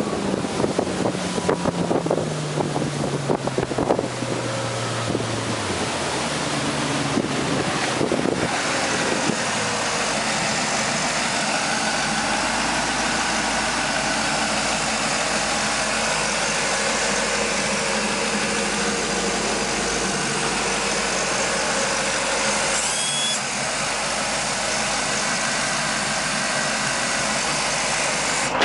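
Volvo Penta 5.0GL V8 sterndrive engine in a runabout slowing from speed, its pitch falling over the first several seconds against rushing wind and water. It then runs steadily at idle, heard close up through the open engine hatch.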